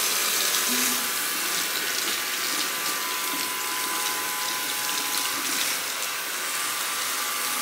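Water running from a salon backwash sink's hand shower over hair and into the basin, a steady rush, as colour product is rinsed out of the hair.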